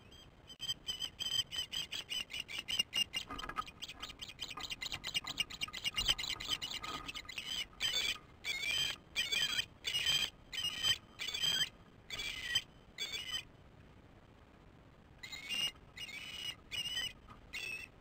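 Ospreys calling at the nest as one lands with a fish: a series of short, high chirps that quickens into a fast chatter, then slows into longer, separate calls that bend in pitch. The calls stop for a couple of seconds, then start again.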